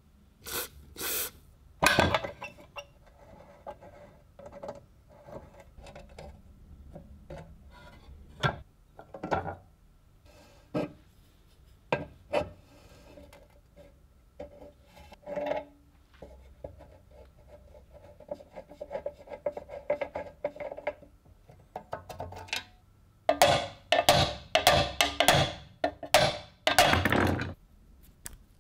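Rusty steel parts of an old mining lamp being handled and taken apart by hand: scattered small metal clicks and scrapes as a corroded nut is worked loose, with a longer run of denser scraping near the end.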